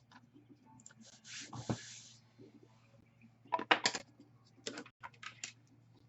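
Clicking and tapping on a computer keyboard, in scattered bursts, with a short rustle about a second in.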